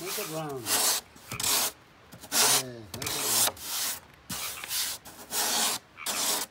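Hand sanding block rubbing back and forth on a surfboard, about ten short, uneven strokes with pauses between them. A couple of strokes carry a brief rising-and-falling squeak.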